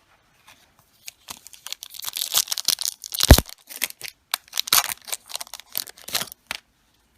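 A Digimon trading-card booster pack wrapper being torn open and crinkled, a run of crackles with one sharp, loudest rip about three seconds in.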